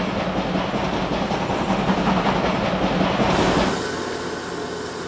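Steam train running on the rails, a dense rumble and clatter. After about three and a half seconds it stops, and a quieter steady hum remains.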